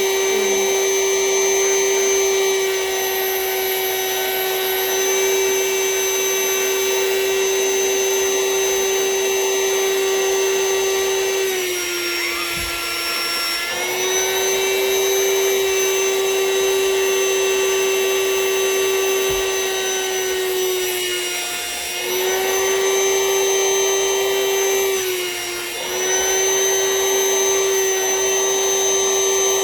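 Vacuum cleaner running steadily while drawing the air out of a vacuum storage bag packed with plush toys. Its motor pitch dips briefly three times.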